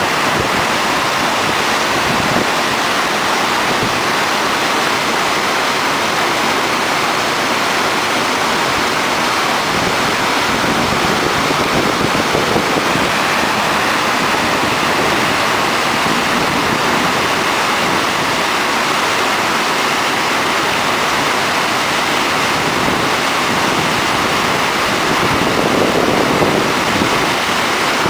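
Steady, loud rush of whitewater from a river weir running with three gates open, churning into a standing wave.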